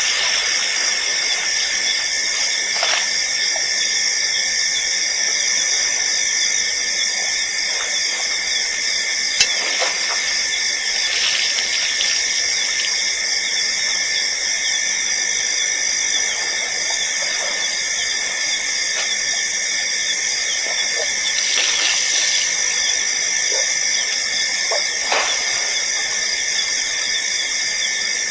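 Steady high-pitched whine and hiss, with a few faint short clicks here and there. No elephant calls.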